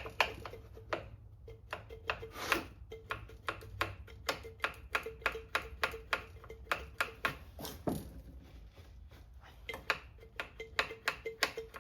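Rapid, fairly even series of sharp metallic clicks and taps, about three to four a second, from hands working on a Homelite C5 chainsaw.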